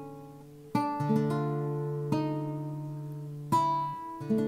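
Two nylon-string classical guitar parts: a D minor chord rings while single notes of the D chromatic scale are plucked over it, a new note about every second, each left to ring. Some of the notes sound tense against the chord and others resolved.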